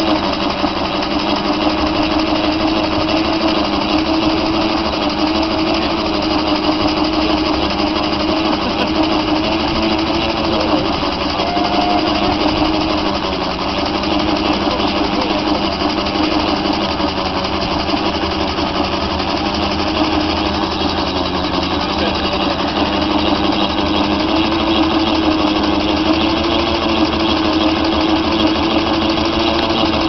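Model Fowler Z7 steam ploughing engine running continuously while ploughing, a steady mechanical sound with a held hum, working under load.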